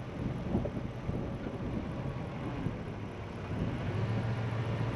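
Vehicle engine running at low speed as it drives slowly over dirt, a steady low hum.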